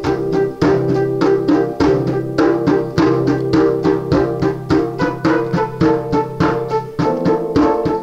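Instrumental stretch of an improvised band jam: an even percussion beat, about three to four strikes a second, over sustained bass notes and held chords.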